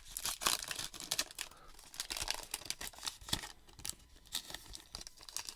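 Plastic baseball-card pack wrapper crinkling and tearing as it is handled and ripped open, in a run of short irregular crackles.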